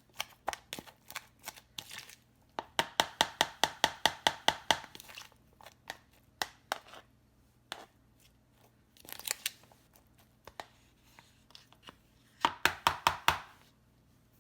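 A utensil clicking against a bowl in quick runs of strokes, about six a second, as food is stirred and tossed, with scattered single clicks between the runs.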